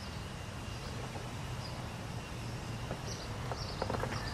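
Outdoor ambience: a steady low rumble with faint high chirps now and then, and a few light ticks near the end.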